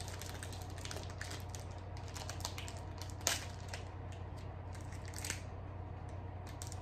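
Cookie package being opened: crinkling, crackling packaging with a sharper rip about three seconds in and another burst around five seconds. A low steady hum runs underneath.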